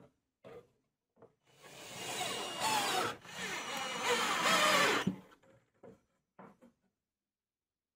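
Cordless drill driving screws through a magnetic knife strip into plywood, its motor whirring with a wavering pitch in two runs with a short break between them. A few light wooden knocks come before and after as the pieces are handled.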